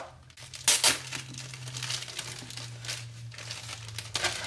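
Wrapping crinkling and rustling as a book is unwrapped by hand, in a few short bursts, the loudest near the start and another near the end.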